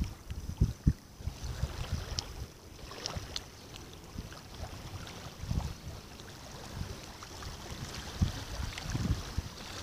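Wind buffeting the microphone in uneven gusts, over small waves lapping on a pebbly lakeshore.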